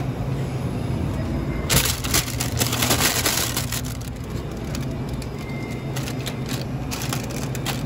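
Plastic-wrapped ice cream bars crinkling and rattling against a freezer's wire basket as a hand digs through them, loudest from about two to four seconds in, with a few light rustles near the end. A steady low hum runs underneath.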